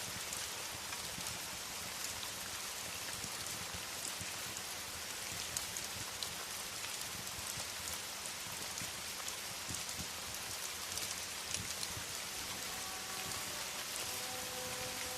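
Steady rain falling, with scattered sharp crackles and pops of a wood fire in a fireplace. Faint held music notes come in near the end.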